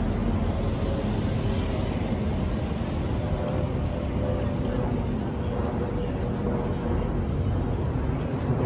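City street ambience: a steady low rumble of traffic with no single sound standing out.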